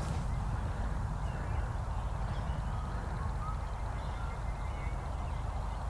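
Steady low outdoor background rumble with a few faint, brief bird calls scattered through it.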